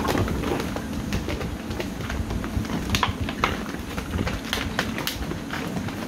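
American bully puppies' claws scrabbling and clicking on the hard plastic floor of a kiddie pool as they scuffle, making irregular clicks and scrapes over a constant low rumble.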